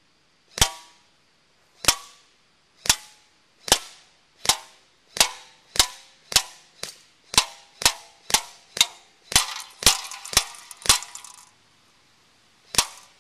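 A long run of sharp, gunshot-like cracks, each with a brief metallic ring, as shots punch holes into an aluminium soda can. They quicken from about one a second to about two a second, break off for nearly two seconds, and one more comes near the end.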